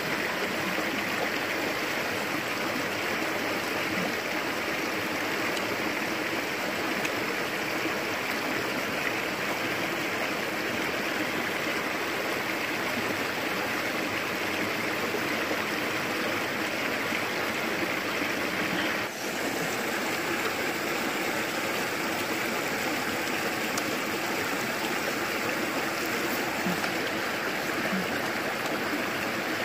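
Stream water running steadily, an even rushing with a brief dip about two-thirds of the way through.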